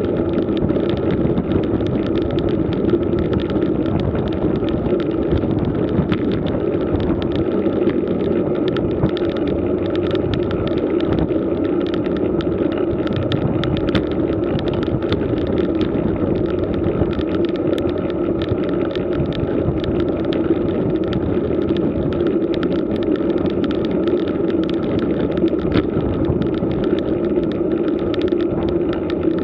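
Riding noise of a road bike climbing slowly on rough asphalt: a steady rumble of tyres and wind, with constant small clicks and rattles.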